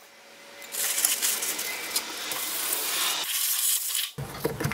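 Aerosol can of brake parts cleaner spraying in a long hiss, swelling about a second in and cutting off near the end. It is blasting spilled brake fluid off the rear brake bleeder until dry.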